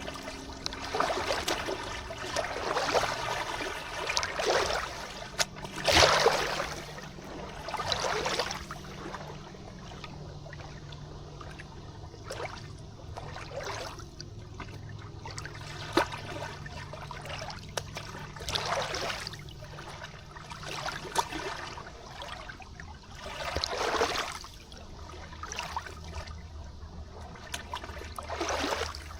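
River water trickling and splashing in irregular surges a couple of seconds apart.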